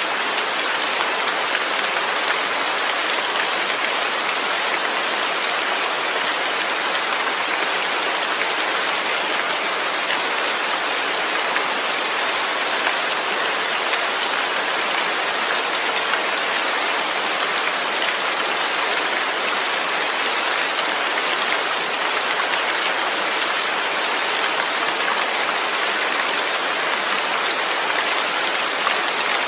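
Steady, even rain falling and pattering on surfaces.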